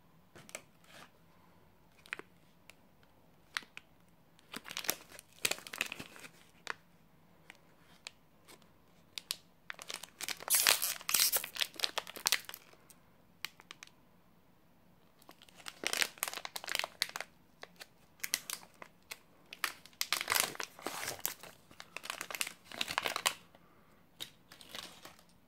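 Shiny plastic wrapper of a Fazer Dumle Snacks chocolate bar being handled, crinkled and torn open by hand, in several bouts of crackling with sharp clicks, loudest about ten seconds in.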